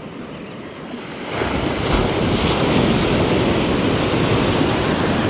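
Ocean surf: a wave breaks and washes up the beach around the wading angler. The rush of water rises sharply about a second in and stays loud.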